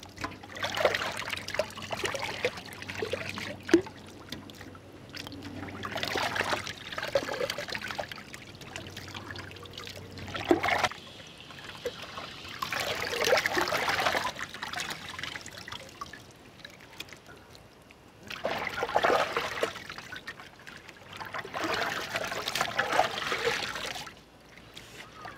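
Water being poured and splashing over pieces of cut stingray meat as they are rinsed to wash out the blood, in about six separate pours of a second or three each.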